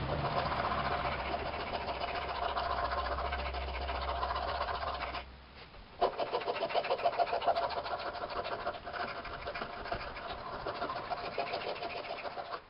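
Hand file rasping in quick strokes across the edge of a stainless steel butter knife clamped in a vise, roughing in a crude blade edge. The strokes stop briefly about five seconds in, then resume.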